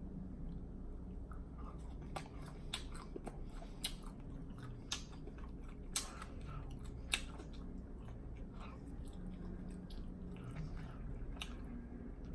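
A person chewing a mouthful of food close to the microphone with deliberate, exaggerated lip smacking. Sharp wet smacks come at irregular intervals, roughly one every second or so.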